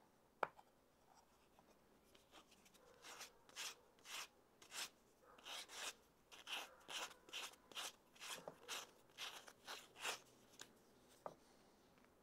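Sandpaper rubbed by hand against the edge of a small wooden disc, sanding it down to slightly reduce its diameter: a run of short scratchy strokes, about two to three a second, from about three seconds in until about ten. A single sharp click about half a second in.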